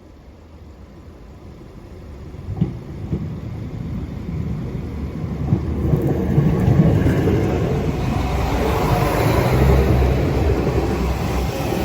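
Northern Ireland Railways diesel multiple unit pulling out of the station, its engines and wheels rumbling and growing steadily louder as it gathers speed. Two sharp knocks come between two and three seconds in.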